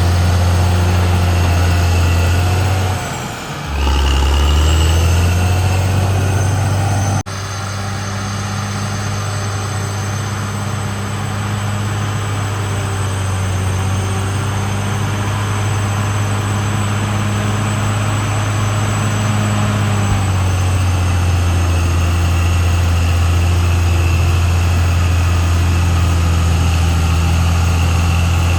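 Caterpillar D6R XL bulldozer's diesel engine running steadily with a deep hum. About three seconds in, the note sags briefly in pitch and loudness, then recovers. There is a sudden break about seven seconds in.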